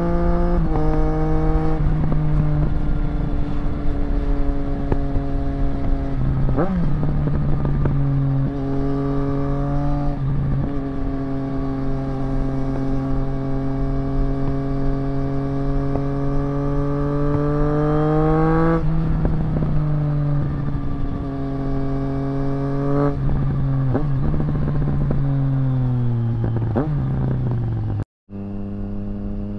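A 2024 Triumph Street Triple RS's 765 cc inline-three runs through a Zard titanium exhaust under way, with several gear changes that each make a sudden step in pitch. A long steady stretch in gear slowly climbs in pitch, then the engine note falls in steps as the bike slows near the end. The sound cuts out for a split second shortly before the end.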